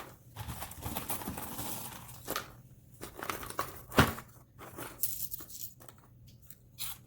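Dehydrated marshmallows and a plastic container being handled: rustling and irregular light clicks, with one sharp click about four seconds in.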